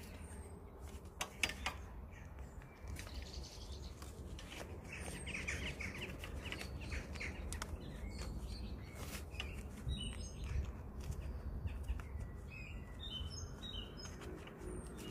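Small birds chirping, with short high chirps scattered through and a quick run of notes near the end. Mixed in are a few sharp clicks and rustles of nylon webbing and plastic strap buckles being handled, the loudest about a second and a half in, over a steady low rumble.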